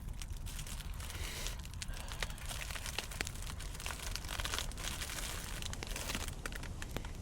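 Crinkling and rustling with many scattered sharp clicks, over a low steady rumble.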